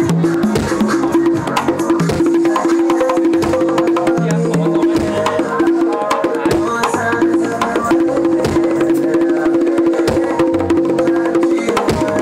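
A set of LP congas played with bare hands in a quick, busy pattern of strikes, with a held note from another instrument sounding on and off underneath.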